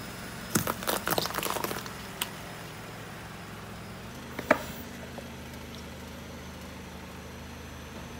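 A car tyre crushing a row of plums on concrete: a quick run of wet cracks and squelches about half a second in, lasting just over a second, and one more sharp crack about halfway through, over the car's engine idling.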